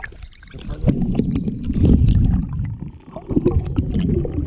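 Muffled, low sloshing and gurgling of water heard with the microphone submerged, stirred by goslings paddling beside it. Two loud stretches of rumbling water with a brief dip about three seconds in.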